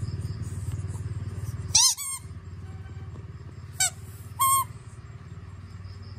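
Green rubber squeaky ball squeaking as a Shiba Inu bites down on it: a loud double squeak about two seconds in, then two shorter squeaks around four seconds. A steady low hum runs underneath.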